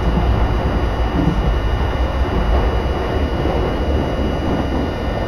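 Keisei Main Line electric train running at speed, heard from inside the passenger car: a steady low rumble of wheels and running gear on the rails, with a thin steady high tone above it.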